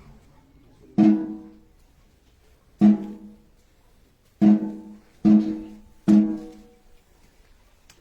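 A marching band's drum struck five single strokes, each with a short pitched ring that fades. The first two are spaced about two seconds apart and the last three come closer together.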